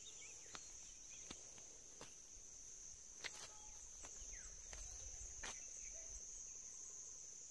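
Faint, steady high-pitched insect chorus. A few soft clicks stand out, about five over the span.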